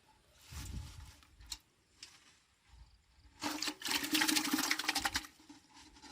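Water splashing in two bursts, a short one about half a second in and a longer, louder one from about three and a half to five seconds in.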